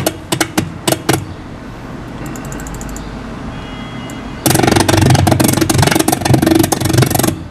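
Scrubbing the editing timeline gives choppy, stuttering snippets of the clip's soundtrack. About four and a half seconds in, the clip plays smoothly: a radio-controlled model helicopter's engine running loud and steady.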